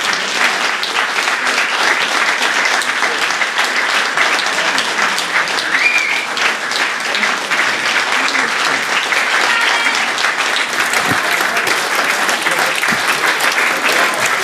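Audience applauding, a dense, steady clapping from a full hall.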